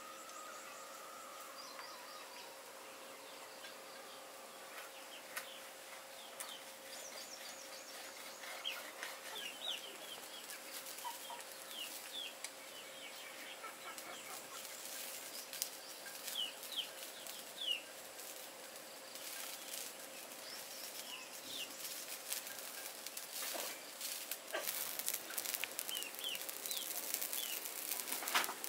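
Chickens clucking and birds chirping over and over, with a faint steady hum underneath. A cluster of sharp clicks comes near the end.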